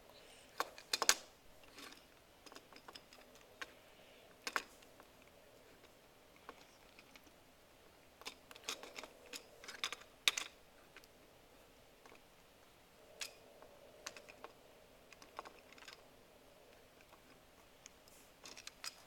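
Small plastic toy parts being handled and fitted together: irregular sharp clicks and taps coming in short clusters, the loudest about a second in and around ten seconds in.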